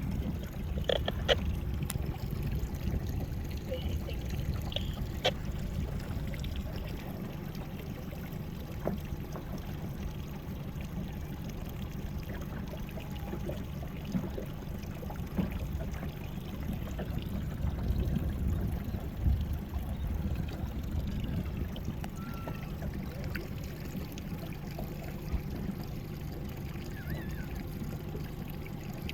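Sea water lapping and trickling, with small splashes and clicks, over a steady low rumble.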